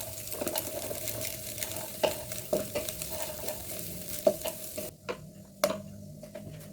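Food sizzling in a frying pan as it is stir-fried, with a spatula clacking against the pan every second or so. The sizzle cuts off suddenly about five seconds in, leaving a few more spatula knocks.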